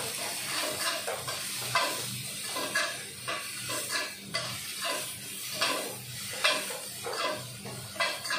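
Metal spatula scraping and tossing chopped vegetables in a wok, about one to two strokes a second, over a steady sizzle of stir-frying in a little hot oil.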